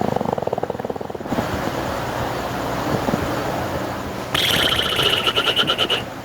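Sound effects made with a human voice: a rapid fluttering, engine-like buzz for about a second, then a breathy rushing noise. About four seconds in comes a high, rapidly pulsing alarm-like tone, which cuts off just before the end.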